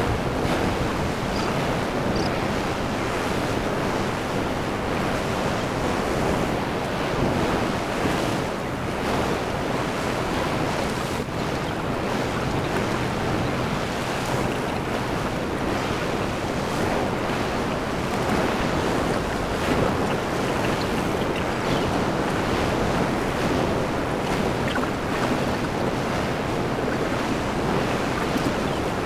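Ocean surf breaking on the beach and washing up the sand, a steady rush with no pauses. Wind buffets the microphone underneath it.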